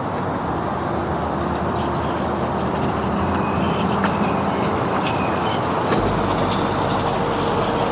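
Steady rushing of floodwater flowing across a lane, with small birds chirping now and then above it.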